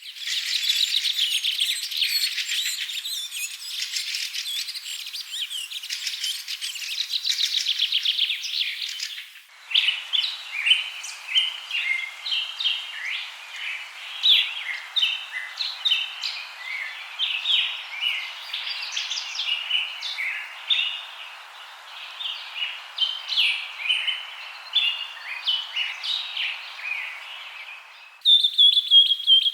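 Several songbirds chirping and trilling, with many quick high calls overlapping. The sound changes abruptly about nine seconds in and again near the end: a dense, fast trilling chorus gives way to separate, sharper chirps over a faint hiss, then a dense trill returns.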